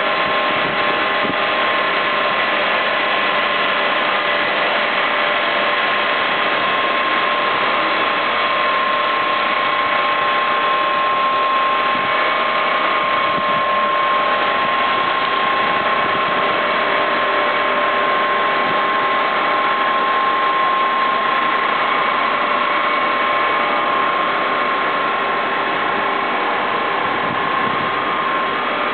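Machinery of a used-oil refinery plant running steadily: an even mechanical noise with a constant whine.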